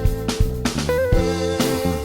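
Background music: electric guitar over bass and a drum kit beat.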